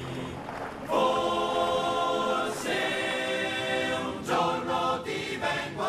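Choir singing an Italian soldiers' song in Italian, in long held notes with short breaks between phrases.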